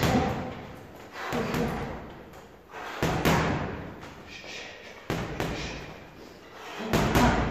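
Boxing gloves striking a hanging heavy punching bag, one thud about every one and a half to two seconds, with two blows in quick succession near the end.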